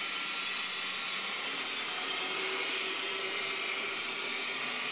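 Sound decoder of a Jouef HO model of the CC 70002 locomotive playing its engine running sound through the model's small speaker: a steady hissing drone with a faint hum, unchanging while the model runs.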